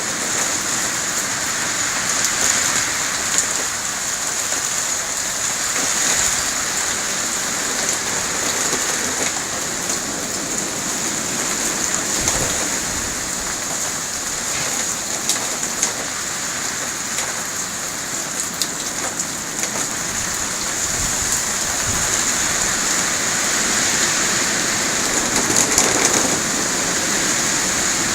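Hurricane Sandy's wind-driven rain falling steadily on surfaces, with scattered sharper clicks of drops striking.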